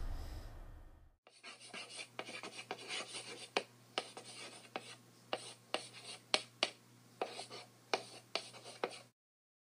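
Chalk writing on a chalkboard: scratchy strokes broken by sharp taps, starting about a second in and stopping shortly before the end, over a faint low hum.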